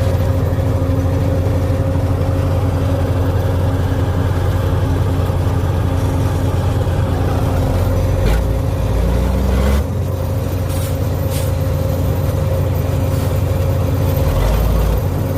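Heavy diesel construction machinery running steadily with a constant low drone and hum, with a few short knocks about halfway through.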